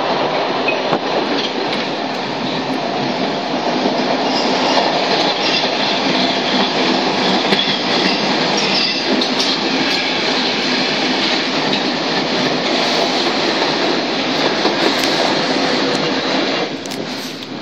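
Stockholm Metro C6 subway car running at speed, heard from inside the car: a loud, steady rumble of wheels on the rails. The noise drops abruptly near the end.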